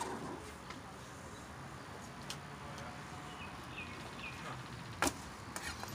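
Quiet outdoor backyard ambience with a few faint bird chirps in the middle and a short sharp knock about five seconds in.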